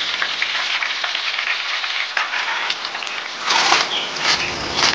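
Tempura-battered shrimp deep-frying in a wok of hot oil: a dense, steady sizzle full of fine crackles, with a few louder swells in the second half.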